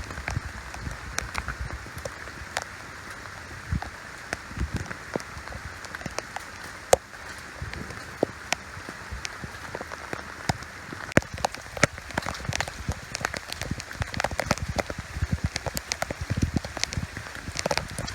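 Rain falling steadily, with many scattered sharp drips and ticks of drops striking close by. The drops come thicker and heavier in the second half.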